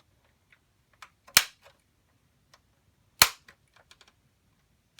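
Plastic latch tabs of an Xbox 360's outer case snapping loose as the case is pried apart: two loud sharp cracks a little under two seconds apart, with fainter clicks and ticks of the plastic between them.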